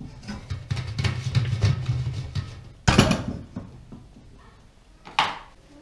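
A utensil scraping and stirring through the contents of a large stainless steel pot, with a loud clank of the pot or its glass lid about three seconds in and a shorter knock near the end.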